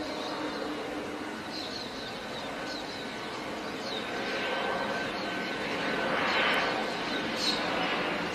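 Outdoor ambience on the sighting footage's own sound: a steady hiss of distant traffic with short high bird chirps every second or two, the background swelling louder around six seconds in.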